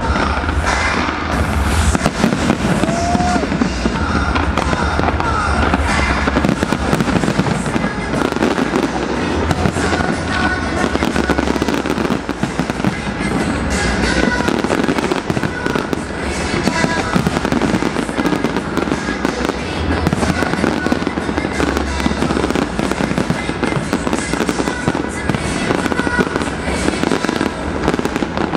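Large fireworks display: many bangs and crackles of bursting shells overlapping without a break.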